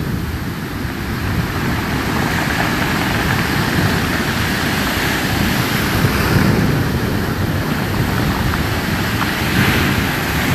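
Storm surf breaking and washing up the shore: a continuous rush of waves with a heavy low rumble, swelling about two seconds in and again near the end, with wind buffeting the microphone.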